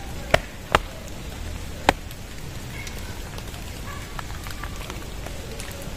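Steady rain, with three sharp clicks in the first two seconds.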